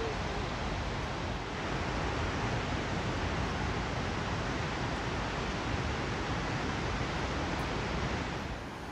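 Steady rush of fast-flowing water, easing a little just before the end.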